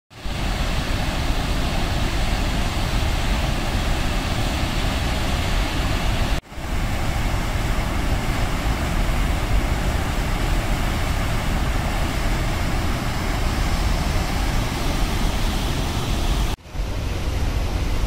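Water rushing over open reservoir spillway gates into the churning pool below, a steady, loud rush of falling water. It cuts out for a moment twice: about six seconds in and shortly before the end.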